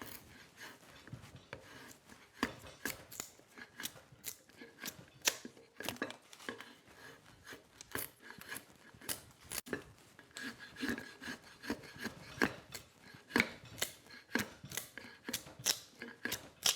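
An edged hand tool shaving down a hickory hammer-handle blank: repeated short, sharp cutting strokes at an uneven pace, about one or two a second.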